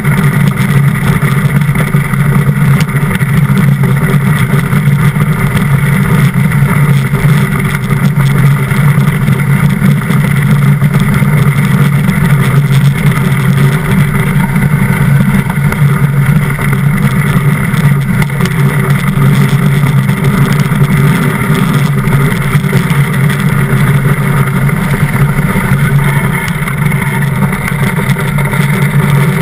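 DN iceboat sailing fast on hard ice: the steel runners make a loud, steady low rumble, with strong wind blowing over the boat-mounted camera.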